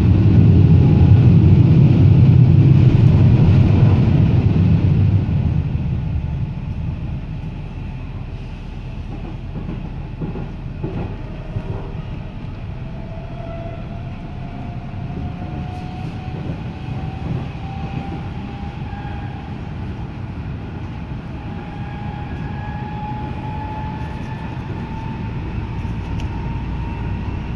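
Athens Metro train heard from inside the carriage, running along the line: a loud rumble of wheels on rail for the first five seconds or so while it passes a covered concrete section, then a steadier, quieter running noise. Through the second half a thin electric-motor whine rises slowly in pitch as the train picks up speed.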